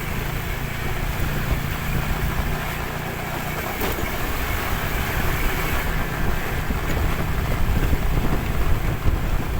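Steady drone of a vehicle's engine under way, with road and wind noise, and one short click about four seconds in.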